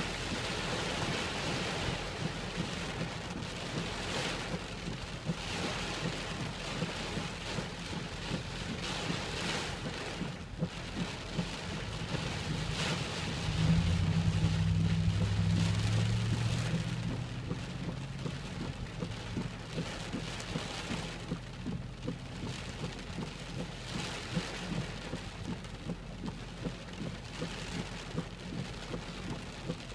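Heavy wind-driven rain drumming on a car's roof and windows, heard from inside the cabin, swelling and easing in gusts. A louder low rumble builds about halfway through and fades over a few seconds.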